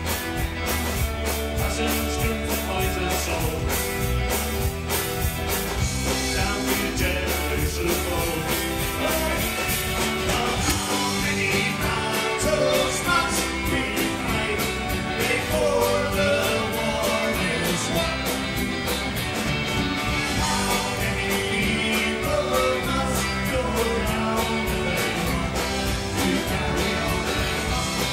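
Live Scottish folk-rock band playing loudly: electric guitar, fiddle and a steady drum beat, with singing.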